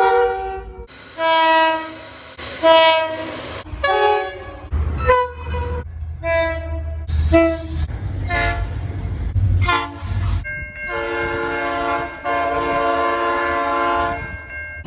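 Train horns sounding in a run of blasts, short and long, each a chord of several tones, ending in a long held blast of about three seconds. A low train rumble runs under the middle part.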